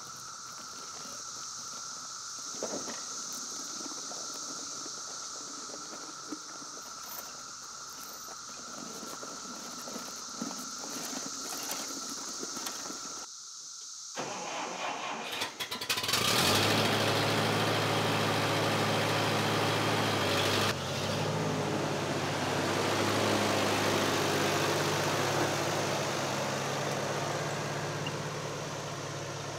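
The four-cylinder engine of a 1959 Allis-Chalmers D17 tractor is started about halfway through: a short crank, then it catches and runs steadily at idle. Its note shifts about five seconds after starting. Before the start there is only a steady background with a few small clicks.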